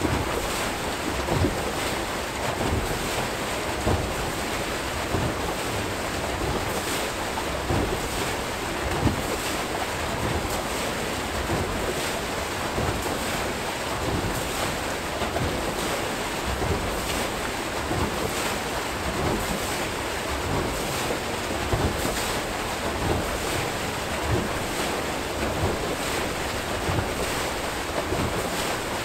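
Archimedes screw hydro turbine turning, with water rushing and churning as it pours out of the screw into the river channel. The steady rush carries frequent short, irregular splashes.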